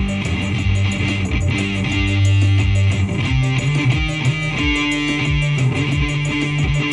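Electric guitar playing held notes that change every second or so, over a steady low beat of about two thumps a second.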